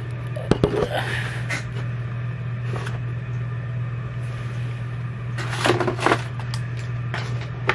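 Small knocks and clicks of objects being handled and moved about, with a short burst of rustling and clattering near the end, over a steady low hum.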